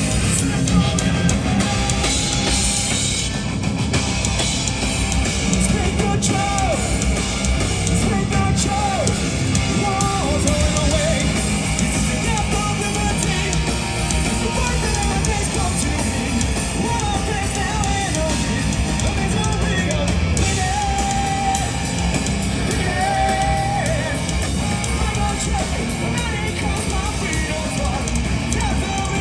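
Live punk rock band playing loud: distorted electric guitars, bass and drums, with a singer's voice on top.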